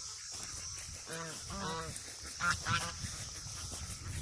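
Penned farm animals calling noisily: short pitched calls come in quick runs of three or four, several times over.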